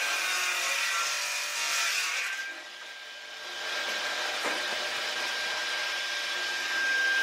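Hecht electric cradle-type firewood circular saw: the spinning blade's steady high whine under the rasp of it cutting through logs. The cutting eases off for about a second midway, leaving the blade running free, then starts again as the next log is pushed into the blade.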